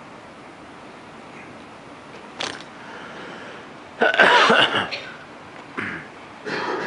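Hall ambience with a few short coughs from the audience. The loudest cough, about a second long, comes about four seconds in.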